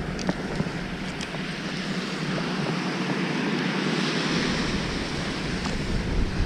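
Surf washing onto a sandy beach, with wind buffeting the microphone and a few faint clicks in the first second or so.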